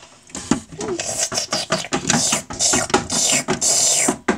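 A person's voice making breathy hissing mouth noises, with a few short voiced sounds, in an irregular run of bursts.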